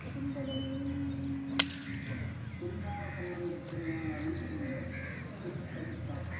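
Crows cawing repeatedly, with a steady hum during the first two seconds and one sharp knock about a second and a half in.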